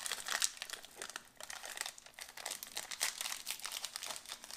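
Small foil snack packet of peanuts crinkling and rustling as it is worked open by hand, a dense run of irregular crackles.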